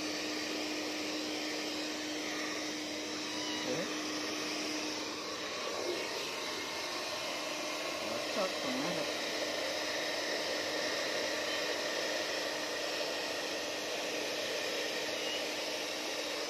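Handheld hair dryer running steadily: a constant rush of blown air over a low motor hum.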